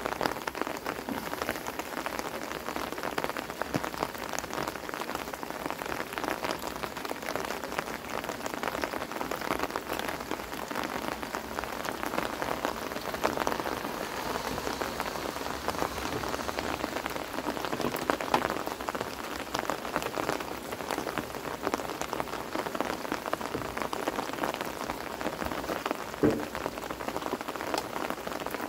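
Pouring rain falling steadily, a dense patter of drops on a wet wooden deck, with one louder knock near the end.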